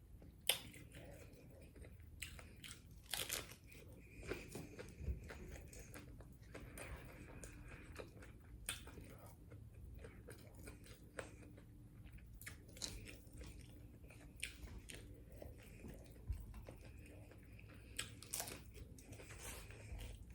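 Quiet chewing and biting into tacos, with scattered soft crunches and mouth clicks.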